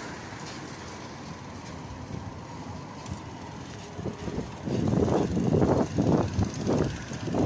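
Steady city road traffic noise. From about four seconds in, a run of loud, irregular thumps and rustles comes in over it.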